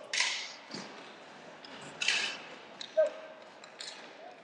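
Inline hockey play: sticks clacking on the rink, with a few sharp hits. The loudest comes about three seconds in, over the steady hum of the rink and crowd.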